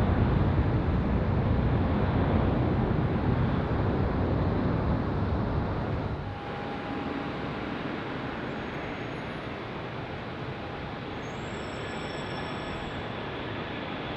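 Jet airliner departure noise: a low rumble from a jet climbing away that fades. About six seconds in it drops to a quieter steady jet noise with a faint high engine whine from an Airbus A321 on its takeoff roll.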